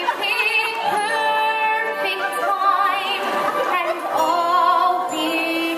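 A young woman singing a musical-theatre song solo with vibrato on long held notes, over a live pit band.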